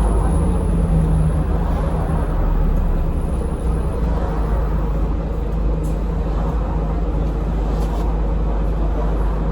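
Scania N230UD double-deck bus engine running under way, heard from inside the passenger cabin as a steady low drone with road noise. A thin high turbo whine sits over it for the first few seconds, then fades.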